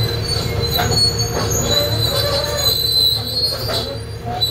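John Deere excavator travelling on its tracks, the diesel engine running under a steady low rumble while the steel tracks squeal in high, wavering tones.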